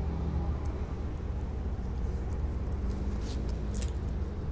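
Steady low outdoor rumble with a faint hum, and a few soft clicks and rustles toward the end.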